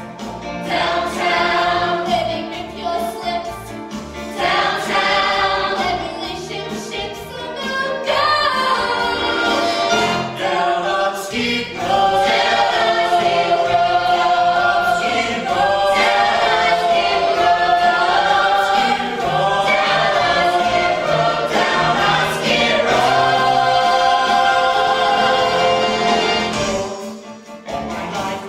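A large cast of men and women singing together in a stage musical ensemble number, with long held chorus notes through the second half and a short drop in level near the end.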